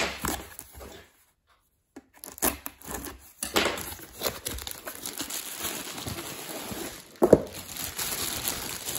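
Cardboard box handled, then a thin plastic wrapper crinkling steadily as a lunch box in its plastic bag is pulled out of the box. One sharp knock comes near the end.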